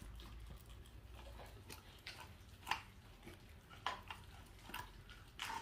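Welsh corgi gnawing and chewing raw meat on the bone: faint, scattered crunches and clicks of teeth on bone and gristle, about one a second.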